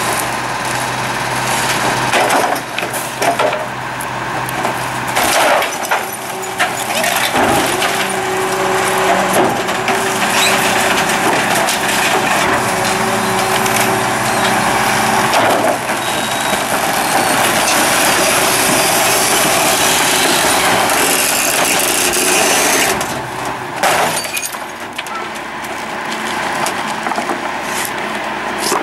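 Superior Pak rear-loader compactor on a 6x4 Acco garbage truck running a packing cycle. The hydraulic packer blade sweeps and crushes hard waste in the hopper with a steady mechanical drone and sharp cracking and splintering of wood and other junk. The drone eases off near the end.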